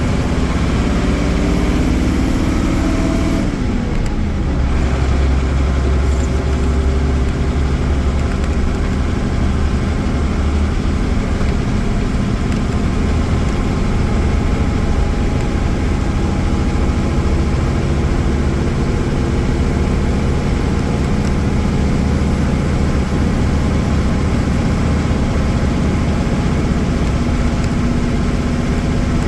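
Mercedes-Benz OM-366A inline-six turbo diesel of an OF-1318 coach running on the move. The revs drop about three seconds in, then it runs on at a steady low drone, with the pitch slowly climbing toward the end as it pulls.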